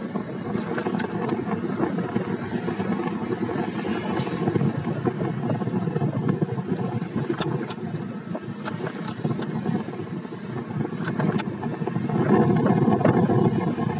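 Motorcycle engine running steadily under way, mixed with wind and road noise, and a few sharp clicks scattered through it. It grows louder near the end.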